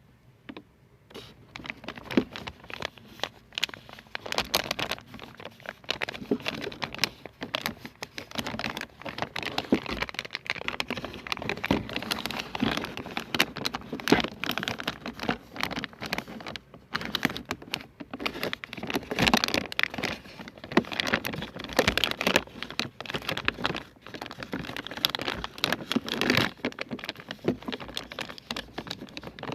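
Close-miked ASMR trigger sounds: a dense, irregular stream of small taps, clicks and crinkles, starting about a second in.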